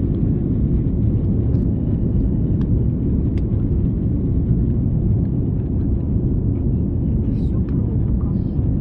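Steady low rumble of a jet airliner heard inside the cabin, an even drone with no rise or fall.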